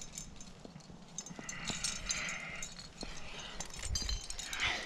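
Carabiners and quickdraws on a lead climber's harness gear loops clinking against each other in scattered clicks as the climber moves, with some rustling.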